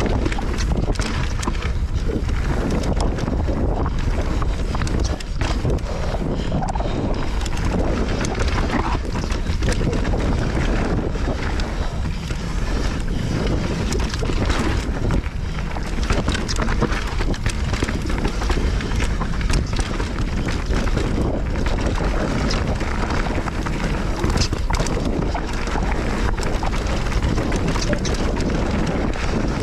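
Steady wind rush on the microphone while riding a Nukeproof Giga full-suspension mountain bike downhill. Tyres run on the dirt trail, with frequent short clicks and rattles from the bike over rough ground.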